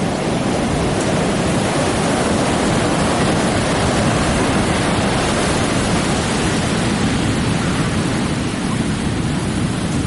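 Pacific Ocean surf washing on the shore: a steady, continuous rush of breaking waves.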